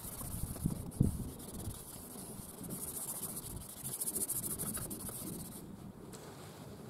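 Plastic headlight lens being hand-sanded with a foam-backed sanding pad, the first pad of a Rain-X restoration kit: a fast, scratchy scrubbing as the oxidised, yellowed surface is rubbed down. A low thump comes about a second in, and the scrubbing stops shortly before the end.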